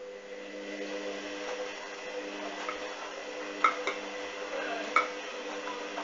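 Hoover washing machine's drum motor starting up a wash tumble with a steady hum, the load of clothes turning in the drum. Two sharp clicks, about three and a half and five seconds in, are the loudest sounds.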